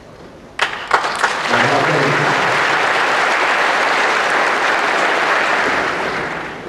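Audience applauding: a few single claps, then dense clapping from about a second and a half in, which fades near the end.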